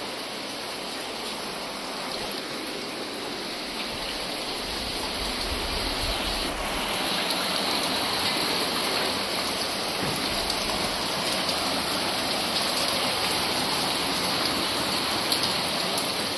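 Floodwater running steadily, a continuous rushing hiss that grows louder from about five seconds in.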